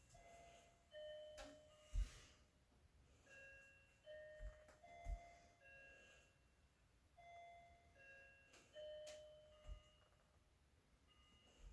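Refrigerator's open-door alarm chiming: a short phrase of ringing electronic notes at a few different pitches that keeps repeating, the sign that the fridge door has been left open. A few dull knocks come from things being handled, the loudest about two seconds and five seconds in.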